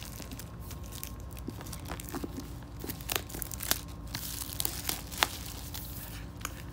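Packaging being opened by hand: crinkling and tearing of wrapping, with scattered sharp crackles and a few louder snaps.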